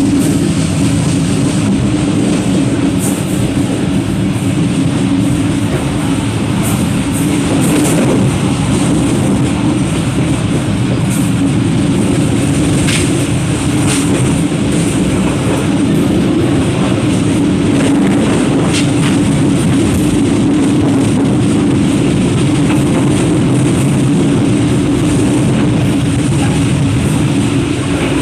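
Passenger train coach running steadily along the track: a constant loud rumble of wheels on rail, heard from the open vestibule between coaches, with a few sharp clicks around the middle.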